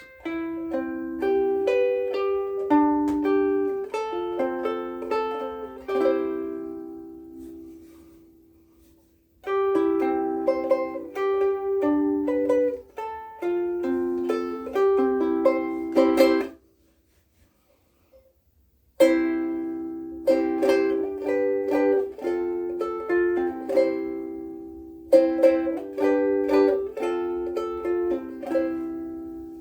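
Blue Wing Ukuleles #3 soprano ukulele with Aquila Bblack strings, played in phrases of picked notes and chords. About six seconds in a chord is left to ring and fade away; after a short break a little past the middle, the playing starts again.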